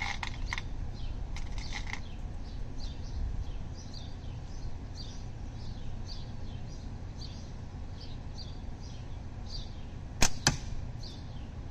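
A slingshot with Falcon 0.75 white tapered latex bands shooting 11 mm steel ball: two sharp cracks about a third of a second apart, about ten seconds in, the shot's release and the ball striking the target. A bird chirps over and over throughout.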